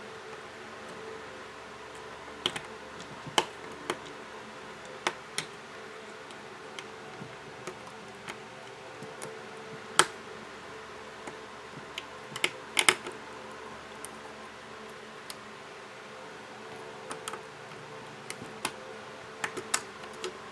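Scattered small, sharp clicks and taps of repair tools prying and handling the charging-port board inside an opened smartphone, irregular, the loudest about halfway. A faint steady hum runs underneath.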